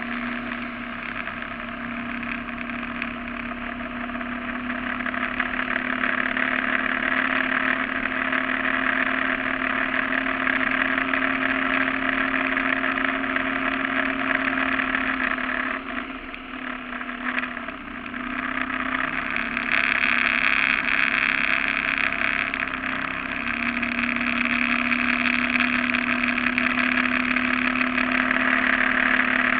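Surface-drive mud motor pushing a flat-bottom boat across floodwater at speed, a steady engine note over a hiss. Its pitch and level drop briefly about halfway through, then it runs up louder again.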